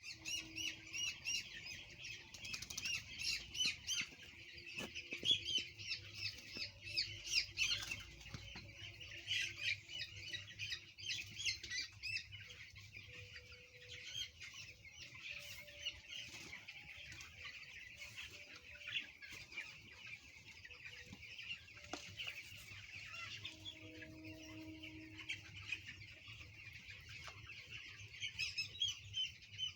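A flock of 12-day-old chicks peeping continuously: many overlapping high chirps, busiest in the first half and picking up again near the end.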